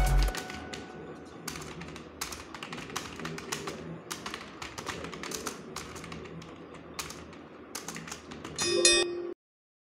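Fast touch-typing on a desktop computer keyboard: a stream of irregular key clicks, several a second. Background music cuts off just after the start. Near the end a brief, louder tone sounds as the typing program's countdown reaches zero.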